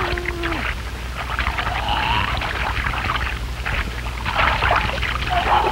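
Water splashing and churning, with brief cries now and then, over a steady low hum.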